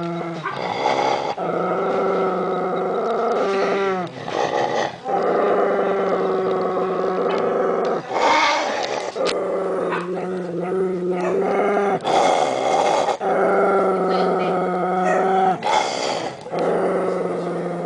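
Miniature pinscher growling in a string of long, steady growls with the doll in its mouth, each broken by a short pause for breath. This is a warning growl of a dog guarding its toy against being taken.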